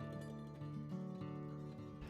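Background music: acoustic guitar playing plucked notes.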